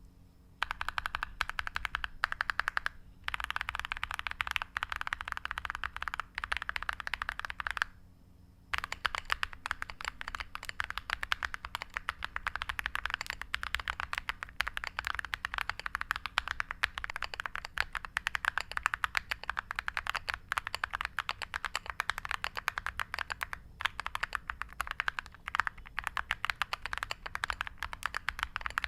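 Fast continuous typing on a Monka Alice67 Pro mechanical keyboard with Akko V3 Creamy Purple Pro tactile switches and dye-sub PBT MOG-profile keycaps. The keys clatter in quick runs, with a brief pause about three seconds in and a longer one around eight seconds in.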